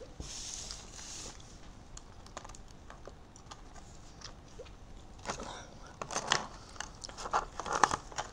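Stiff plastic blister packs of small eraser toys being handled, with a brief rustle at first and then a busy run of plastic clicks and crackles that gets louder over the last few seconds.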